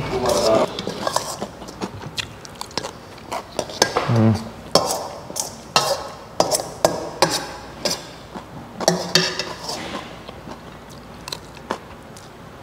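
A metal fork clinking and scraping against a large stainless-steel mixing bowl as food is scooped up from it, in irregular sharp clinks.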